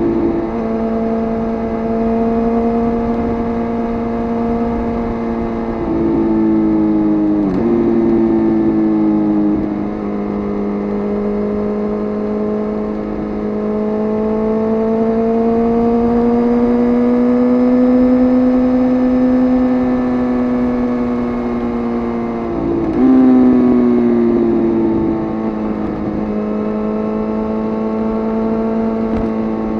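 Suzuki GSX-R inline-four sportbike engine running at steady riding revs, its pitch slowly rising and falling, with two brief sharp drops in pitch, about a quarter of the way in and again about three-quarters through.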